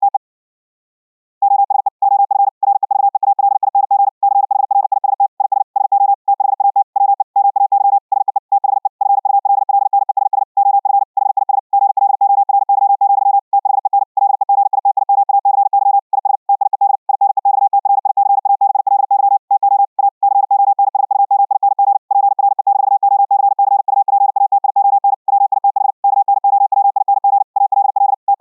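High-speed Morse code (QRQ CW, 60 wpm): a single steady tone keyed on and off in rapid dots and dashes, heard after passing through the Vorbis codec over the internet and playing back from a Raspberry Pi 4 receiver. The keying stops for about a second near the start, then runs on without a break.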